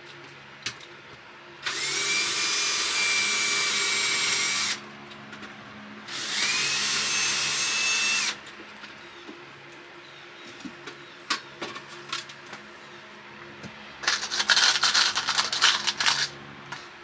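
Cordless drill running twice, for about three seconds and then about two, its motor whine rising and then holding a steady pitch each time. Near the end comes a couple of seconds of rapid, uneven rattling, with a few small knocks in between.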